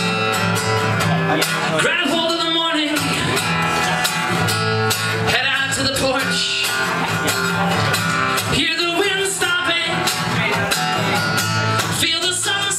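Acoustic guitar strummed steadily in a live solo song, with a man's voice singing phrases over it.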